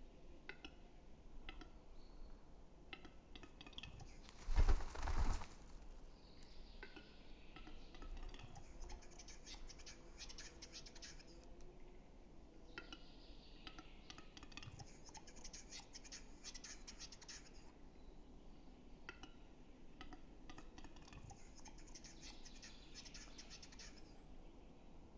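Male western capercaillie singing its spring display song, faint: phrases of dry clicks that speed up into a rapid scraping tick run, repeated about three times. About five seconds in there is a single louder rustling thump.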